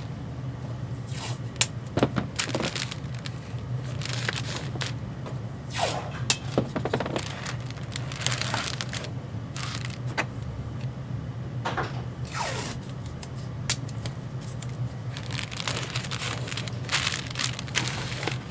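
Clear plastic water-soluble stabilizer film crinkling and rustling as hands smooth it flat, with blue painter's tape pulled and torn off the roll in sharp rips to tape it down. A steady low hum runs underneath.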